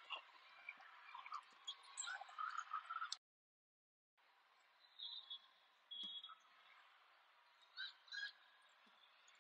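Faint sound of a large indoor sports hall with scattered short squeaks and chirps, typical of athletic shoes on a volleyball court, over a low hall hubbub. The sound cuts out completely for about a second a little after three seconds in.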